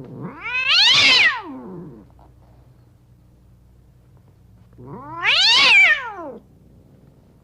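Angry cats yowling: two long, drawn-out yowls, each rising and then falling in pitch, one about a second in and a second one about five seconds in.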